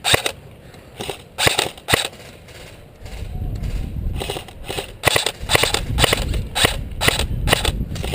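Airsoft guns firing in a skirmish: a few sharp shots in the first two seconds, then rapid clusters of shots from about halfway on. A low rumble sets in under the shots at about three seconds.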